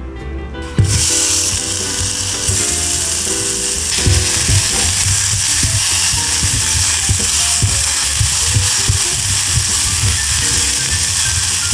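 Onion slices and minced garlic dropped into hot olive oil start sizzling suddenly about a second in, then keep up a steady sizzle. Wooden chopsticks stirring the pan make small clicks through it.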